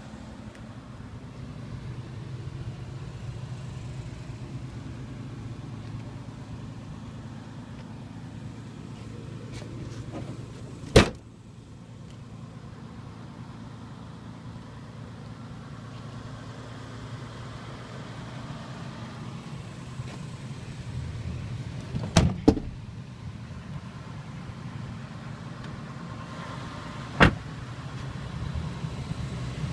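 Steady low hum with a few sharp knocks: one about eleven seconds in, a quick double knock about twenty-two seconds in, and one more near the end.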